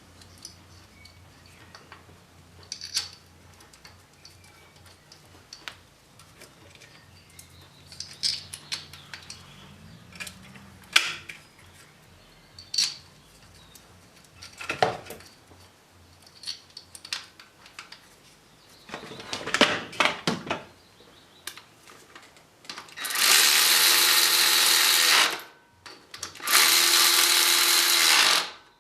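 A power drill running in two bursts of about two seconds each near the end, probably driving fasteners during reassembly. Before that come scattered clicks and knocks of tools and parts being handled.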